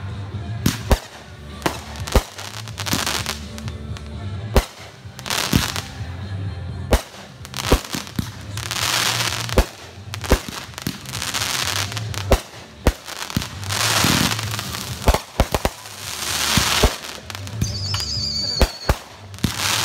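Consumer aerial fireworks going off in quick succession: many sharp bangs of bursting shots, with several longer spells of crackling hiss as the bursts spread.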